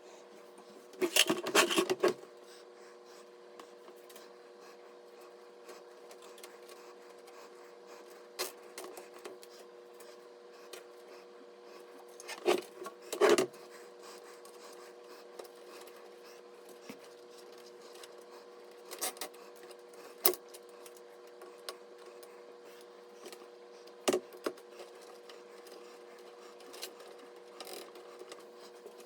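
Scattered clicks and rubbing, as of hard parts being handled, come in short bunches about a second in, twice in the middle and a few more times later. A steady low hum runs under them.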